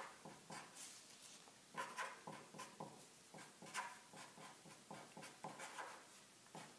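Green felt-tip marker writing on paper: faint, short scratchy strokes at irregular intervals.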